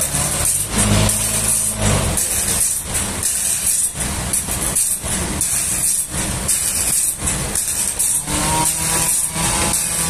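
Toyota forklift engine running while it lifts and carries a heavy log. Music with a steady tapping beat plays over it.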